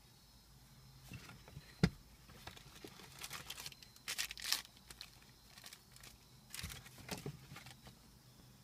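Packaging and parts being handled: crinkling and rustling of plastic wrap with scattered light clicks, and one sharp knock about two seconds in.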